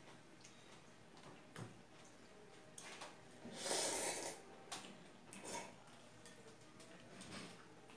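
A person slurping ramen noodles: one long, noisy slurp a little before halfway, with a few small clicks and shorter mouth sounds around it.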